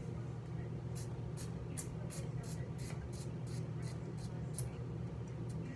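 Hand-pumped spray bottle spritzing hair product onto hair in quick repeated squirts, about three a second, over a steady low hum.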